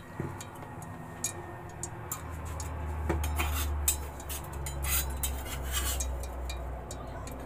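Scattered light clicks and ticks from a metal pot with half a cup of cooking oil heating on the stove, over a low hum that sets in about two seconds in and fades near the end.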